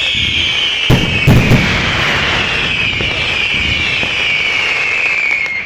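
Fireworks: a shrill whistle that slowly falls in pitch and stops near the end, with three bangs in quick succession about a second in.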